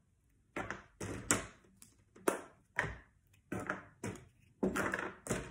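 Hollow plastic Easter eggs being pulled apart and their halves set down on a tabletop: a string of sharp, irregular plastic clicks and taps, about ten in all.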